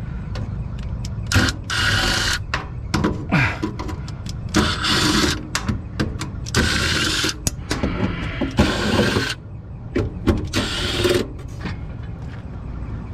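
Cordless drill/driver running in a string of short bursts, under a second each, as screws are backed out of sheet-metal panels, over a steady low hum.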